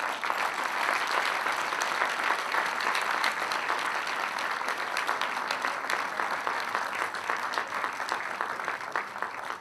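Audience applauding, a dense, steady clapping that starts abruptly as the award is handed over.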